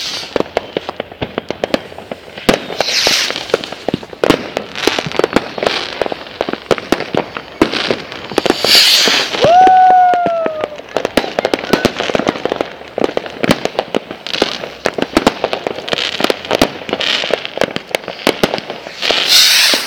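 Fireworks going off: a dense, rapid crackle of pops throughout, with several louder hissing bursts and a short whistle that rises and then sinks slightly about halfway through.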